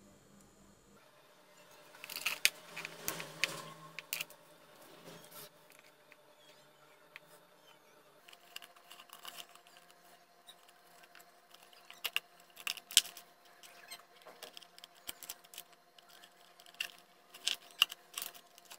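Handling noise: irregular clicks, taps and light rattles of small electronic parts and a white plastic enclosure being picked up and set down. A faint steady hum sits underneath from about eight seconds in.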